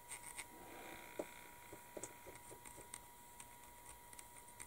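Near silence: faint, scattered small ticks and scrapes of a silver weathering pencil's point working over a plastic model's grille, under a thin steady tone.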